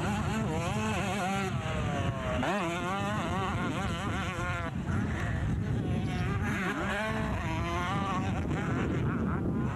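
Two-stroke motocross bike engines racing on the track, their pitch repeatedly rising and falling as the riders work the throttle, several engines overlapping over a low rumble.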